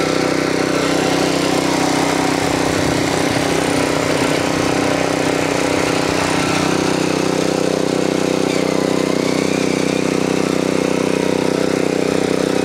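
Earthquake Victory rear-tine tiller's Viper engine running steadily under load, its tines digging a first pass through hard, grassy ground.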